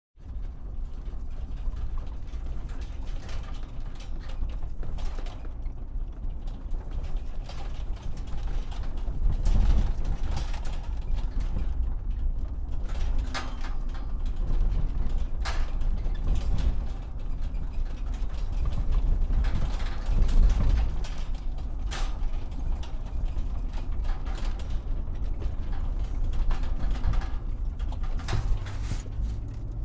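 Truck driving over bumps: a low, steady rumble with frequent rattles, creaks and knocks from the body, and heavier jolts about ten and twenty seconds in.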